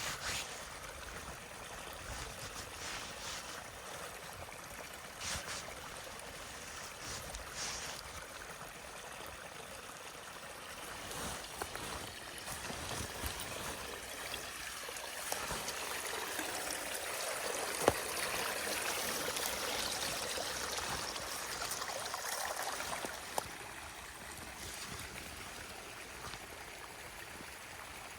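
Running water of a forest stream, a steady rushing that grows louder in the middle stretch and eases again near the end, with a single sharp click about eighteen seconds in.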